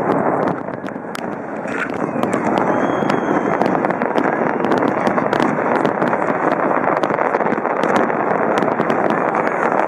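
Large fireworks display: a dense, continuous rumble of bursts with many sharp crackling pops throughout, and a short whistle about three seconds in.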